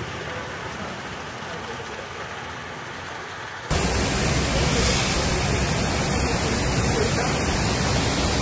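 Heavy rain and rushing runoff water, a steady dense hiss. A little over three and a half seconds in it cuts abruptly to a louder, fuller rush of rain and water.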